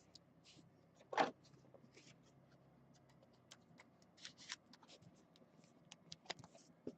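Faint rustling and light clicks of trading cards being handled, with one louder rustle about a second in.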